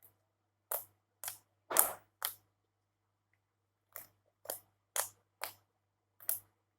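Slime being squeezed and poked by hand, giving short sharp pops in two runs of about four or five, roughly two a second.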